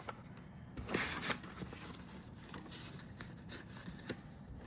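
A picture-book page being turned: a short paper rustle about a second in, followed by a few light taps.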